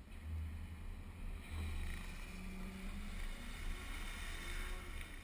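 Low rumble of wind buffeting a hood-mounted camera, with the car's engine running underneath as the car turns. A hiss builds up about a second and a half in.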